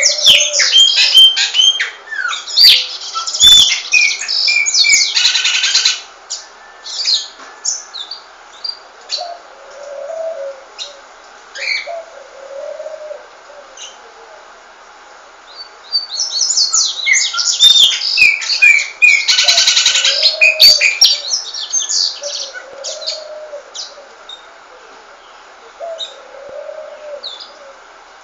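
Pet songbirds singing: two long bursts of rapid, varied chirps and trills about fifteen seconds apart, with scattered single chirps in between.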